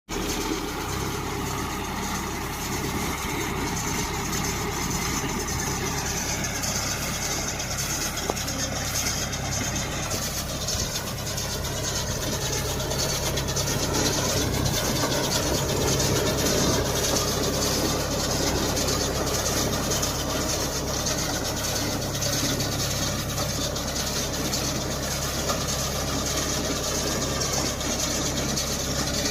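Tractor-driven Bull Agro baler running, with a steady engine and continuous machinery noise over it.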